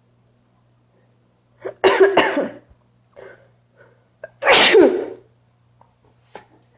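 A woman sneezing loudly twice in a sneeze attack, about two and a half seconds apart, with short quieter breaths between the sneezes.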